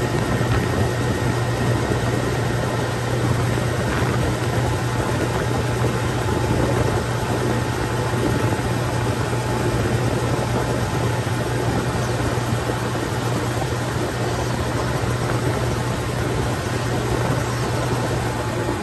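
2021 Hammerhead go-kart's engine running steadily at a constant cruising speed of about 35 mph, a low even drone under a steady rush of wind and tyre noise on a dirt road.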